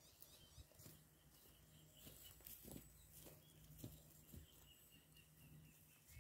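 Near silence: faint rural outdoor ambience with a few faint clicks and a faint steady hum.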